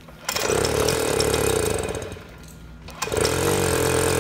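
Jawa Babetta moped's small two-stroke single-cylinder engine running with the choke off: it runs for about two seconds, drops away, then picks up again about three seconds in and keeps running steadily.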